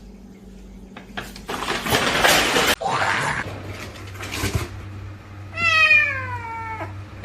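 A domestic cat meows once, a long call falling in pitch, about six seconds in. Before it there are a couple of seconds of noisy, hiss-like sound.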